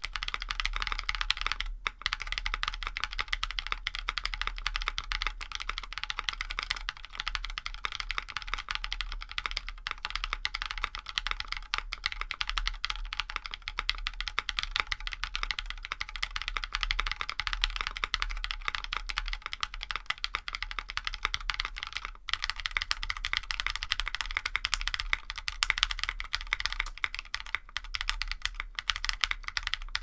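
Continuous fast typing on a QK65 R1 mechanical keyboard with Alexandrite switches and Domikey Hush keycaps, first with its aluminum plate, then after a brief break about two-thirds of the way in, with its polycarbonate plate.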